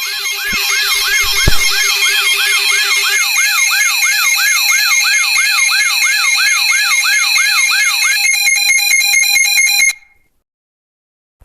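Synthesized emergency-alert alarm: a siren-like sweep repeating about three times a second over several steady high tones, with a low hum that drops out about three seconds in and a deep thump about one and a half seconds in. Near the end the sweep gives way to a fast pulsing warble, then everything cuts off abruptly.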